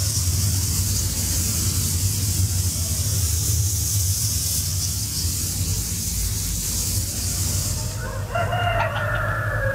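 A steady high hiss over a low hum. Near the end a rooster crows once: a pitched call of about a second and a half that falls at its close.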